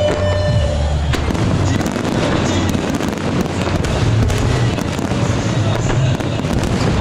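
Fireworks going off: a dense, continuous crackle of many small pops over a low rumble, with music playing underneath.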